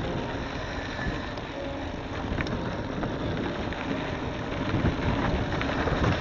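Wind buffeting the microphone and bicycle tyres rumbling over a dirt road, with a few faint clicks of grit and gravel.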